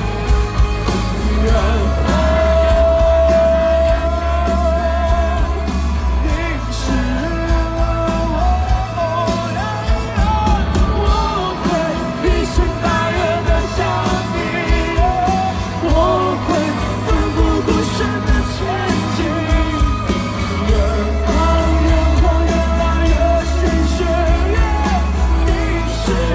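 Live band with a lead singer, drums and bass, recorded on a phone. The vocal holds one long note about two seconds in, then carries on with the melody.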